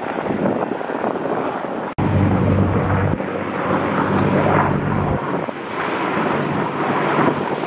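Military helicopter rotor and turbine noise in flight, with wind on the microphone. About two seconds in, the sound cuts abruptly to a louder, steady low rotor drone from a CH-53 heavy-lift helicopter, which eases after a few seconds into a rushing rumble.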